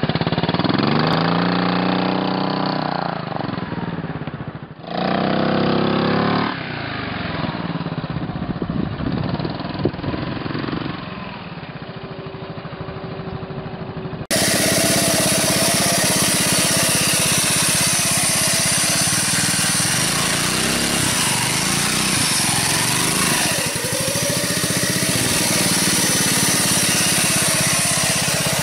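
A motorcycle engine revs up and down twice, then runs lower and steadier as the bike pulls away. After a cut about halfway through, the small engine of a homemade motorbike runs steadily.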